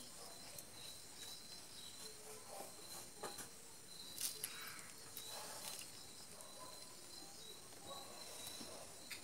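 Soft squelches and clicks of fingers mixing rice and meat curry on a steel plate, with a few louder clicks between about three and six seconds in. Insects chirp steadily underneath.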